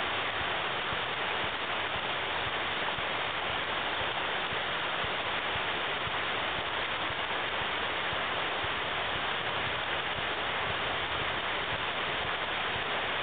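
Steady rushing of flowing water: an even hiss with no breaks or rhythm.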